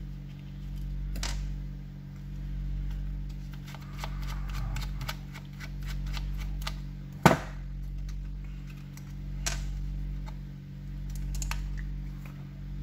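Small clicks and taps of a screwdriver and loose screws being handled while the two case screws of a handheld two-way radio are taken out, with one sharp knock about seven seconds in. A steady low hum swells and fades about every two seconds underneath.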